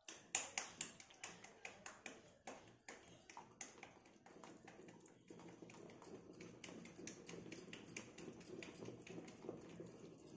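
Pestle pounding boiled potatoes in a black stone mortar: soft knocks about two to three a second, turning into a denser, steadier mashing about halfway through.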